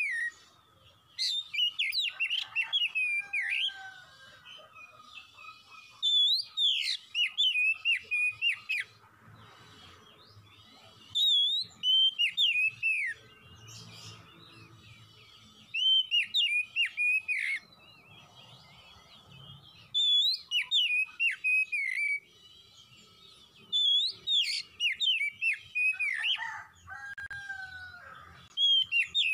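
Oriental magpie-robin (kacer) singing: bursts of varied whistled phrases, each two to three seconds long, repeated every few seconds with short pauses between.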